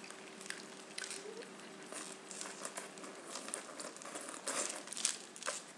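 Popsicle wrappers crinkling in the hands: a faint scatter of short crackles that gets busier in the second half.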